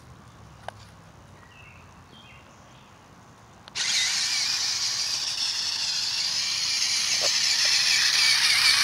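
Toy RC rock-crawler truck's small electric motor and gears whirring as it drives across grass. The sound starts suddenly about four seconds in and runs on as a steady high whine.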